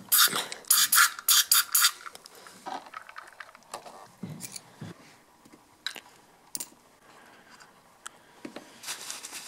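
Aerosol brake cleaner sprayed in several short hissing bursts into a small plastic cup of RC side-pod dampener parts, flushing out the old oil. Then faint clicks and knocks as the cup and parts are handled.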